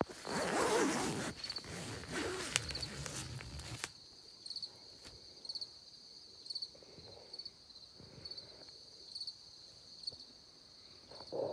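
Rustling and handling of nylon tent fabric for the first few seconds. Then a steady high-pitched chirping chorus with a regular chirp a little more than once a second, from crickets or birds at dawn.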